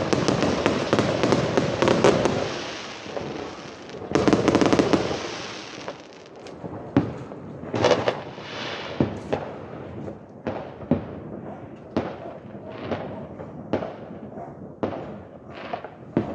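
Fireworks going off: a dense, crackling barrage of bangs, another dense burst about four seconds in, then thinning to separate bangs about once a second.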